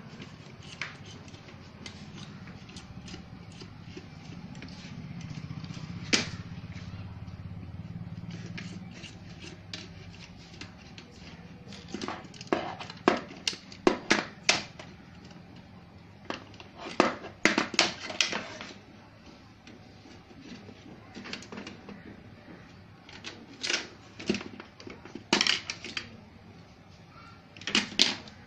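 Irregular sharp clicks and taps from handling tools and parts at a repair bench, coming in clusters, over a low hum that fades after about the first third.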